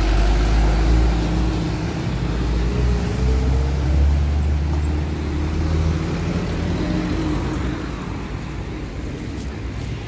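Delivery van driving slowly past close by, its engine hum strong at first and fading after about seven seconds, with street traffic noise behind.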